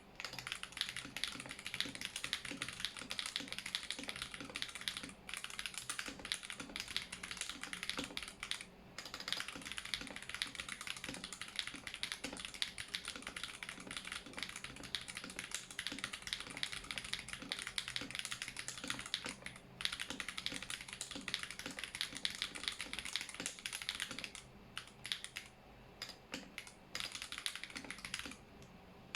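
Fast, continuous typing on a mechanical keyboard with tactile Holy Panda switches, a brass plate and foam in the case, broken by a few brief pauses. The strokes thin out to a slower, patchier patter near the end.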